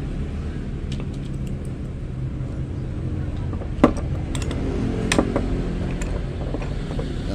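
Hand tools being picked up and set down on a wooden workbench: a few light clicks, then a sharp knock about four seconds in followed by several more knocks and clatters, over a steady low rumble.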